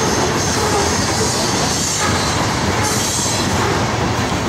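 Freight train of covered hopper cars rolling through a curve: a steady rumble of wheels on rail, with high-pitched squeal from the wheel flanges that comes and goes.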